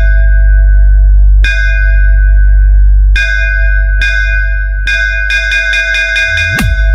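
Bass-boosted electronic sound-check music: a very heavy sustained sub-bass under ringing bell-like synth tones, struck again about a second and a half in and again around three seconds, followed by runs of quick stuttering hits. A fast dip-and-rise sweep in the bass comes near the end.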